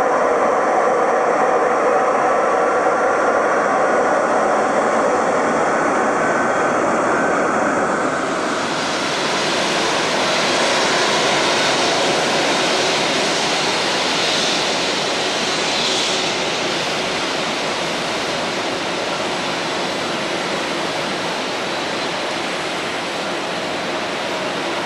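Jet airliner engines running at taxi power, a steady whine over a broad rush. About a third of the way in the whine gives way to a broader, even rush of jet noise.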